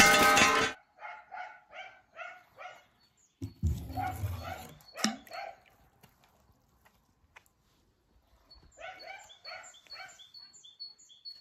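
A small dog yapping in two runs of quick, sharp barks, about three a second, in the background. Between the runs comes a dull thump and splash of a toy car dropping into a swimming pool.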